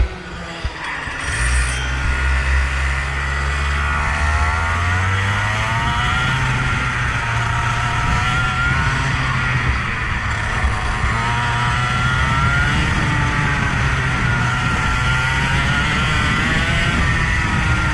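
A vehicle engine being driven hard, its pitch repeatedly rising and falling as it speeds up and slows down, over a steady low drone.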